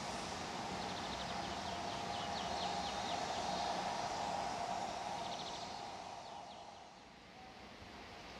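LNER B1 steam locomotive 61306 'Mayflower' and its carriages running past and drawing away, a steady rolling rumble with short runs of clicks. The sound fades out after about five seconds.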